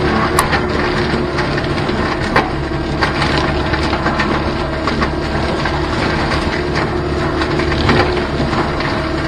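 Caterpillar 289D3 compact track loader's diesel engine and Gyrotrac 500HF hydraulic mulcher head running steadily under load while shredding thick brush, with sharp cracks of wood splintering every few seconds as the head chews through stems.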